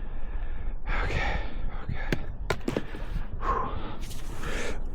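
A man breathing hard and gasping from the exertion of swinging a splitting maul, with a few light knocks about two to three seconds in.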